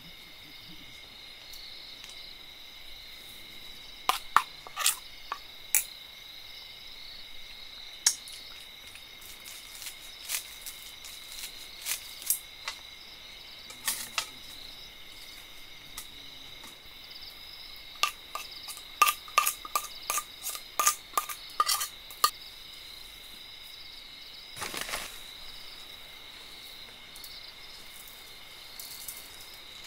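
Steady chorus of crickets chirring, with scattered clinks and taps of stainless steel bowls, utensils and a metal tray as food is arranged. A quick run of ringing metal clinks comes a bit past halfway.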